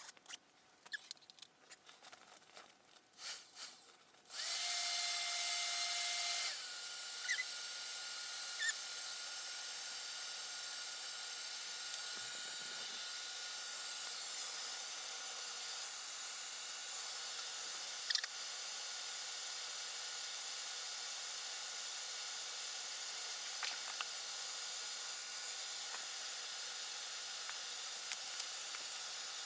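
A few small knocks and clicks, then a hair dryer switched on about four seconds in, running steadily with a faint motor whine that drops in pitch about two seconds later.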